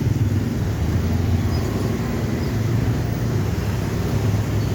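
Road traffic with vehicle engines running steadily as a low, even hum.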